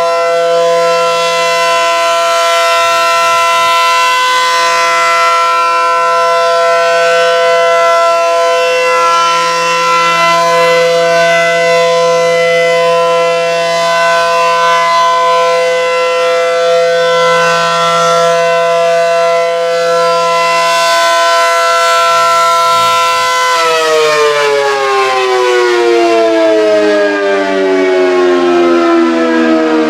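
ACA Allertor 125 dual-tone outdoor warning siren sounding its steady alert tone, loud, during its monthly test. About 23 seconds in the rotor begins to wind down and the tone falls steadily in pitch.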